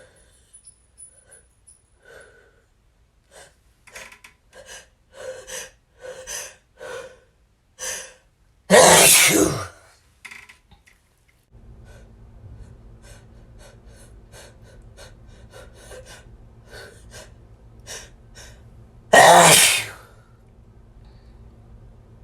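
A man sneezing twice. Each sneeze comes after a run of short gasping breaths; the first run grows louder before the first loud sneeze about nine seconds in, and the second sneeze follows about ten seconds later.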